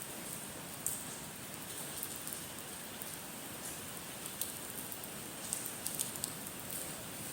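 Steady rain from an approaching typhoon, with scattered sharp ticks of drops striking a surface.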